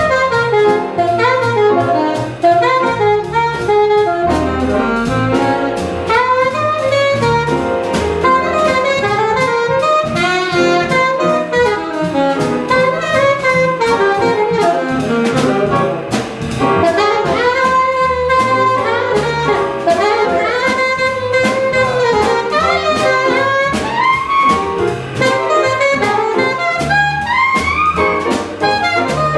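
Small jazz group playing: an alto saxophone plays quick, running lines over piano, upright bass and drum kit.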